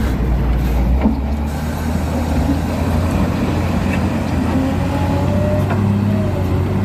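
Steady low rumble of a heavy vehicle engine running, with a faint wavering whine from about halfway through.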